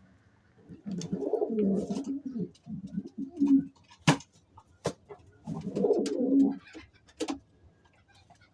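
Domestic pigeon cooing in two low, throaty bouts, with a few sharp clicks between them.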